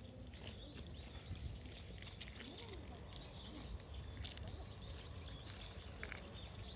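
Birds chirping in the trees, many short high calls scattered throughout, over faint footsteps on a gravel path.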